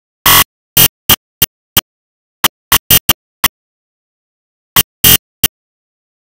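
Glock 23 .40-calibre pistol fired rapidly, about a dozen shots in quick uneven strings, with a pause of over a second before the last three. The shots are loud enough to clip, with dead silence between them.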